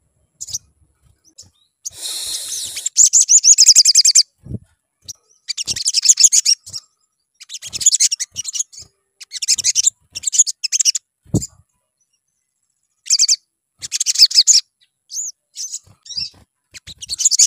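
Male olive-backed sunbird singing in bursts of fast, high chattering trills, each a second or two long, with short gaps between; a couple of sharp low knocks fall between the bursts.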